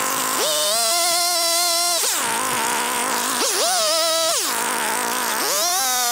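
Chainsaw cutting off the ends of wooden roof battens. Its engine revs up to full throttle for each cut and drops back between cuts, three times over.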